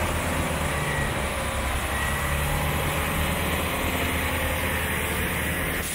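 Underfloor diesel engines of an East Midlands Railway Class 158 multiple unit running steadily as the train moves slowly through the platform, with a low engine hum and a faint high whine.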